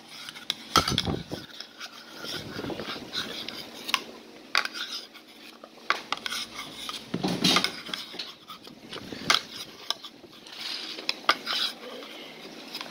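Metal spoon clinking and scraping against a ceramic bowl as ice cream is scooped out, in many short sharp clicks. There is a duller knock about a second in.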